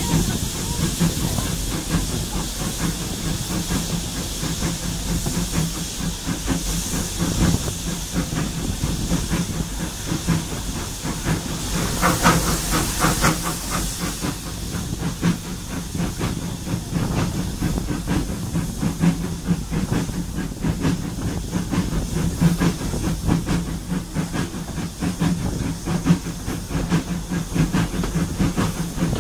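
Heritage passenger train running along the line, heard from an open carriage window: a steady low drone and hiss with fast, even clatter from the wheels and running gear. The clatter grows louder briefly about twelve seconds in.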